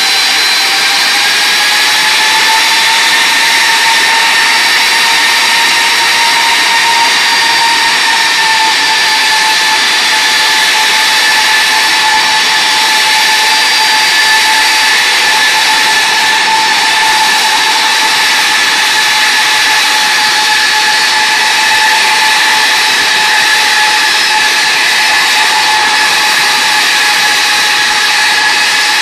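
Rolls-Royce RB211-524GT turbofan on a Boeing 747-438 running at raised power during a ground engine run, with a steady jet whine over a rushing roar. The whine rises slightly in pitch a second or two in, then holds steady.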